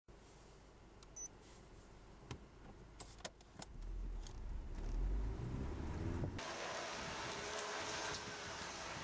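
Low rumble of a car heard inside the cabin, growing louder from about four seconds in as the car gets under way, with a few small clicks before that, as of buttons pressed on a Bowmonk BrakeCheck decelerometer. About six seconds in this gives way to a steady hiss of a car's tyres on wet concrete.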